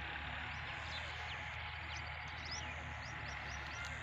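Many small birds chirping, with short, quick calls scattered throughout, over a steady hiss and a low background hum.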